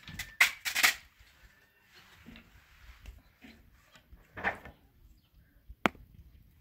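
Dry chunks of fuel scraping, crunching and knocking as they are handled and laid on a small wood fire in a metal brazier: a cluster of rough scrapes in the first second, another about halfway through, and one sharp knock near the end.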